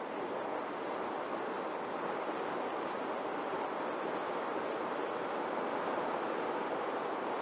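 Steady rush of air and propeller noise from an X-UAV Mini Talon RC plane in flight, picked up by its onboard camera, with no change in level.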